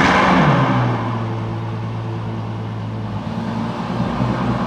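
Ferrari engine starting up: it fires with a brief rev flare that falls away within about half a second, then settles into a steady idle.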